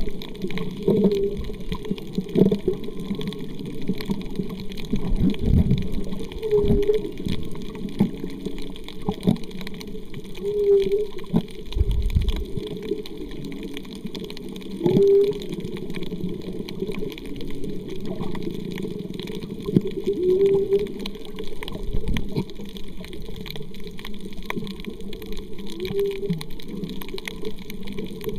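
Muffled underwater noise picked up by a submerged camera. Short pitched tones, each bending up and down, recur every few seconds, and a few low thumps are mixed in.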